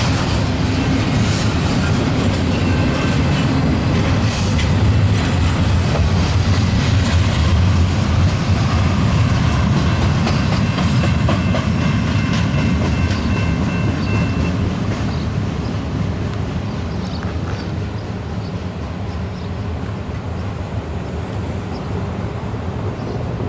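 Double-stack intermodal well cars rolling past on the rails: a steady rumble and clatter of steel wheels, with a thin high wheel squeal through the middle. It slowly dies away as the last car passes and the train moves off.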